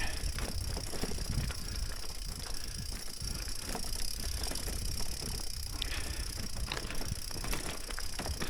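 A road bike being pushed uphill on a rough stony path: irregular crunching footsteps and clicks and rattles from the bike, over a steady low rumble.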